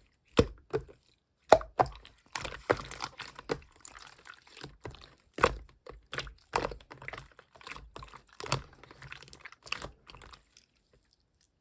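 Slime being squished and poked by hand, making irregular sharp clicks, sticky crackles and small pops; it stops about ten seconds in.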